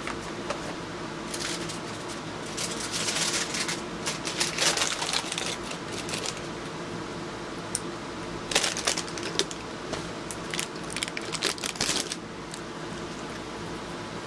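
Two spells of rustling and clicking handling noise close to the microphone, the first starting about a second and a half in and the second about halfway through, over a steady low hum.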